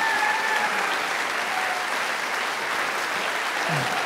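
Audience applauding, the clapping dying down slightly toward the end.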